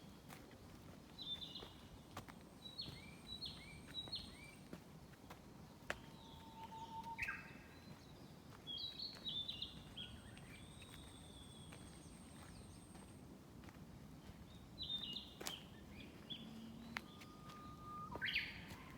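Small songbirds singing in a forest: short phrases of high chirping notes that come every few seconds, over a steady faint background hiss.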